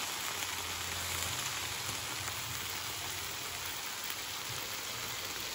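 Whole fish and vegetables sizzling steadily on a hot griddle plate.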